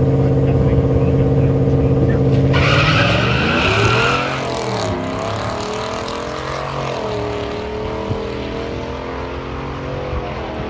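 A drag car's engine held at steady high revs on the start line, then launching about two and a half seconds in with a brief tyre squeal. The engine climbs and drops through several gear changes as the car pulls away and fades.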